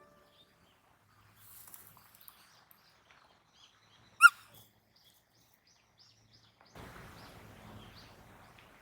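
One short, high-pitched animal call, rising and falling quickly, about four seconds in, among faint outdoor sounds. A stretch of rustling starts near the end.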